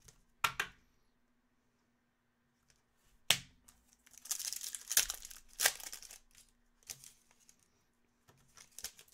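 Topps Chrome Formula 1 hobby pack being torn open by hand, its foil wrapper crinkling and tearing, with a sharp snap about three seconds in. A busier stretch of crinkling follows for a couple of seconds, with a little more just before the end.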